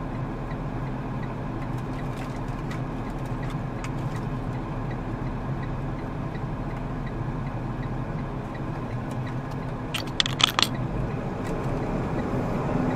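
Semi truck's diesel engine running steadily, heard from inside the cab, with a quick cluster of sharp clicks or rattles about ten seconds in; near the end the engine pitch starts to rise.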